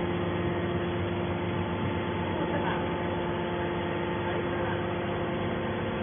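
Hydraulic scrap metal baler's power unit (electric motor and hydraulic pump) running with a steady hum.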